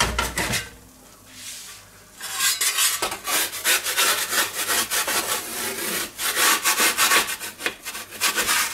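Metal pizza peels scraping and rasping over the pizza stone of an electric pizza oven as they are pushed under a baked pizza, in rapid repeated strokes starting about two seconds in, after a brief clatter at the start.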